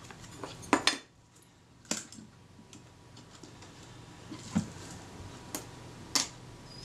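Small metal camera parts clicking and clinking as they are handled and set down on a workbench: several separate sharp clicks, spread out a second or so apart.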